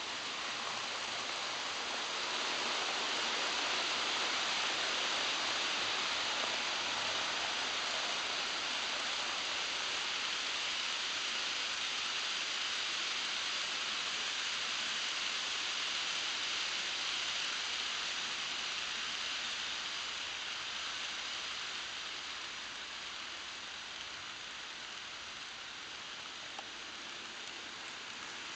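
HO-scale model trains rolling past on floor-laid track: a steady hissing rush of wheels on rails and running motors. It grows louder a couple of seconds in and eases off over the last third.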